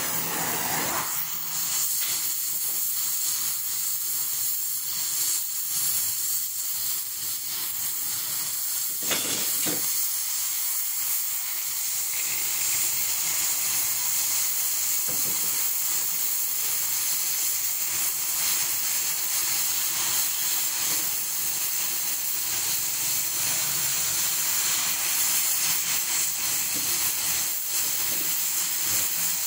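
Oxy-fuel cutting torch cutting a circle through thick steel plate: a steady, even hiss of the flame and cutting-oxygen jet.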